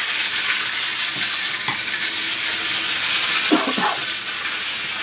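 Steady high hiss with no clear events, and a faint low hum for a second or two in the middle.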